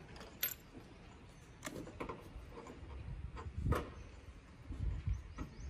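Scattered light knocks and clicks, about half a dozen, from hands working the insulated copper refrigerant pipes and fittings at the split AC outdoor unit's service valves. The loudest knock comes a little before the four-second mark.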